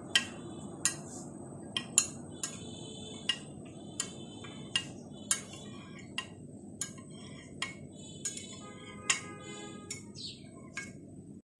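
Knife cutting set mango agar jelly in a glass baking dish, its blade tapping the glass with a light click about every half second to a second.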